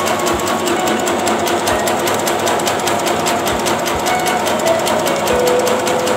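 Bakso (meatball) forming machine running, its mechanism making a fast, even rhythmic clatter.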